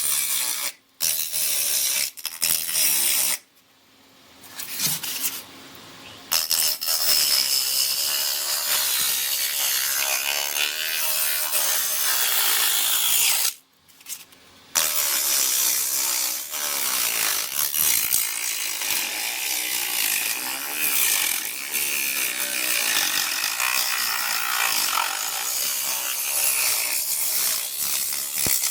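Homemade angle grinder driven by a DC motor, cutting with its disc: a harsh grinding hiss over a motor whine that wavers in pitch as the disc bites. It starts and stops several times in the first few seconds, pauses briefly about halfway, then runs on.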